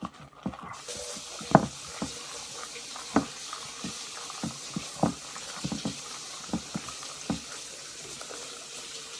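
Water running steadily from a tap, starting suddenly about a second in, with several short sharp clicks scattered through it.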